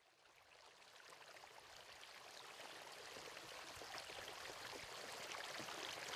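Water lapping and trickling with fine splashy crackles, fading in gradually from silence.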